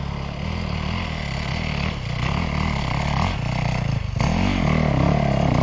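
Dirt bike engine revving hard under load on a hill climb, the revs rising and falling several times near the end.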